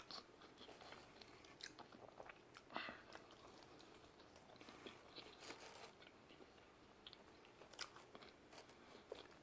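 Faint chewing of pizza: soft, scattered mouth clicks and small crunches, about one every second or two.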